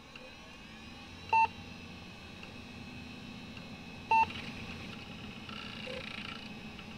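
Two short electronic beeps about three seconds apart, each one clear tone, over a steady low hum and hiss.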